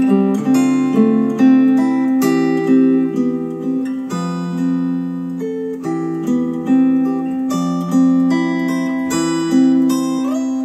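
Acoustic guitar music, plucked and strummed notes, played through a pair of KEF Q150 bookshelf speakers driven by an Arcam SA10 integrated amplifier.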